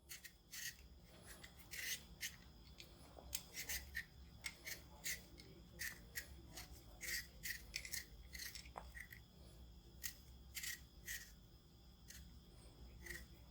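Vegetable peeler scraping the skin off a raw potato in quick, irregular crisp strokes, about two a second.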